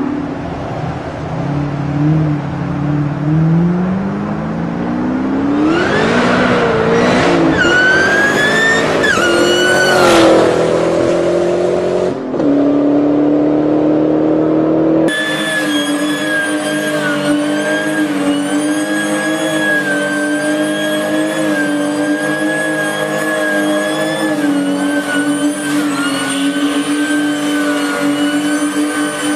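A car's engine is heard as the car accelerates hard along a road, its pitch climbing with a few small dips, then settling to a steadier note as it moves away. It then changes abruptly to a Ford Falcon's engine held at steady high revs in a burnout, with a high whine above it.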